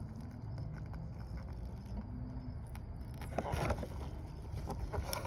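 Jeep Liberty exterior door handle being worked into its opening in the door: light scrapes and small clicks from about three seconds in, over a steady low hum.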